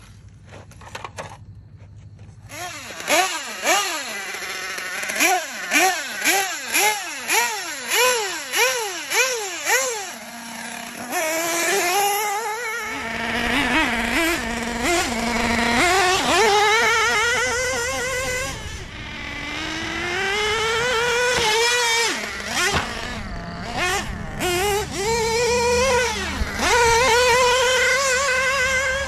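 The LRP .32 (5.2 cc) two-stroke nitro engine of a 1/8-scale Serpent Cobra buggy revving in about ten quick throttle blips, each rising and falling in pitch. It then runs hard at high revs, its pitch wavering and dipping now and then as the buggy is driven.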